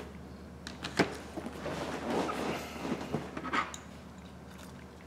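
Handling noise at a repair bench: a sharp click about a second in, then a couple of seconds of plastic crackling and small taps as an iPhone screen assembly is set down on a clear plastic tray, ending with another click.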